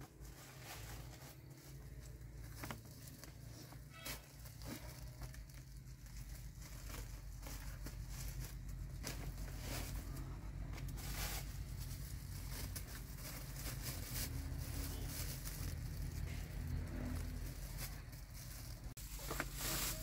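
Plastic bags crinkling and rustling as they are handled, with scattered light knocks and clicks over a steady low hum.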